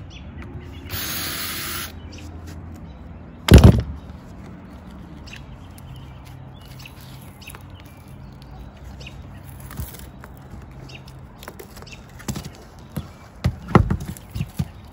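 A cordless drill runs for about a second, backing out a screw from an RV refrigerator vent cover. A single loud thump follows, and near the end come a few sharp cracks and knocks as the cover is pried loose from the roof.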